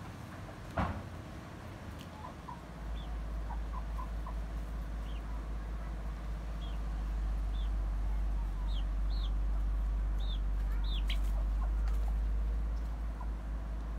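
Hens clucking softly while they peck, with a run of short high chirps from about three seconds in and a sharp knock about a second in. A steady low rumble starts about three seconds in and is the loudest sound.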